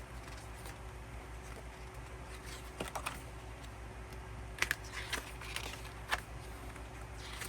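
Paper handling from a K-pop album being gone through: a few short rustles and light clicks, with a steady low hum underneath.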